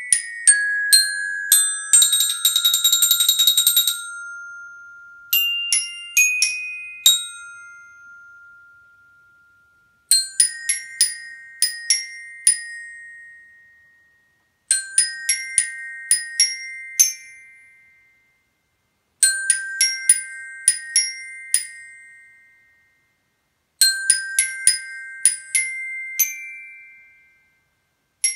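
Glockenspiel (orchestra bells) struck with mallets, playing an audition excerpt: a fast roll about two seconds in whose last note rings on, then four similar short phrases of quick bright notes, each left to ring and fade before the next.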